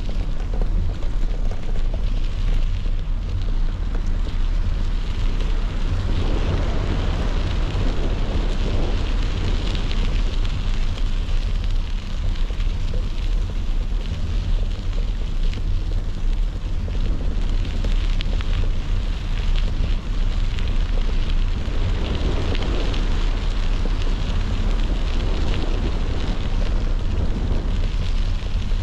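Wind buffeting a moving camera's microphone, a heavy steady rumble, with the hiss of bicycle tyres rolling on a sandy dirt road.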